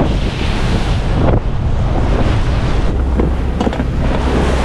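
Strong wind blowing across the microphone over the rush and splash of waves and spray along a sailboat's hull as it sails upwind in rough seas, about 25 knots of wind.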